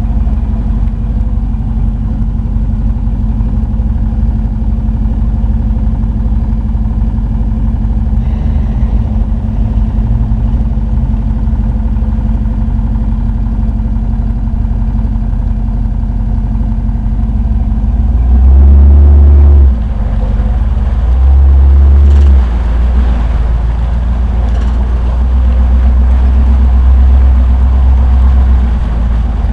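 Jeep engine running at crawling speed through a flooded mud trail, heard from outside the vehicle's window. Two short, much louder low rumbles come about two-thirds of the way in, and a longer one near the end.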